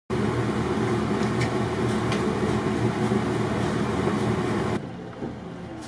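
Steady low mechanical hum on board a boat, dropping sharply in level near the end.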